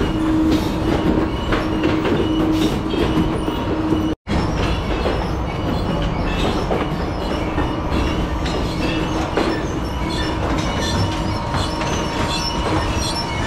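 Shoe factory floor noise: machinery running with a steady hum, and scattered clicks and clatter of work on the line. The sound breaks off for an instant about four seconds in.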